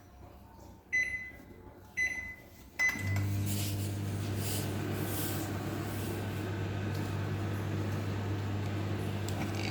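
Microwave oven: three short keypad beeps about a second apart, then the oven starts running with a steady low hum and fan noise.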